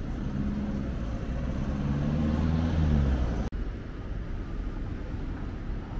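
A motor vehicle's engine hum over steady road rumble, swelling to its loudest about three seconds in, then broken by a sudden momentary cut, after which the steady traffic rumble continues.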